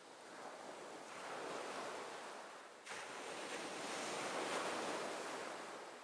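Sea waves washing, a hiss that swells and ebbs in slow surges, with an abrupt break and jump about three seconds in.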